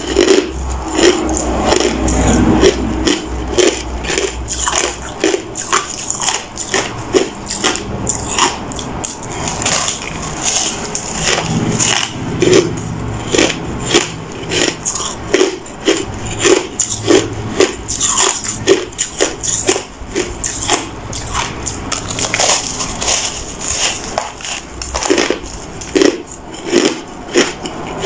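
A person biting and chewing a frozen disc of crushed ice: a dense, continuous run of crisp crunches and crackles, several a second.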